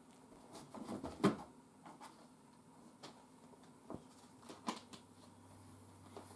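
Soft knocks and rustles of a cat brushing and bumping against cardboard boxes: a cluster about a second in holding the loudest knock, then a few single taps.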